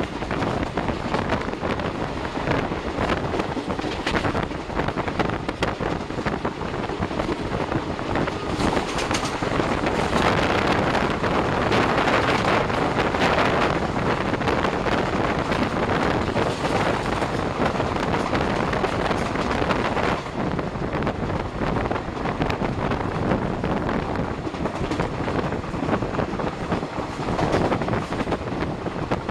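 An Indian express train running at speed, heard from an open door or window: the steady rumble and rush of the wheels on the track, with wind on the microphone. From about ten seconds in, a train on the next track rushes past close by for around ten seconds, making the noise louder and brighter.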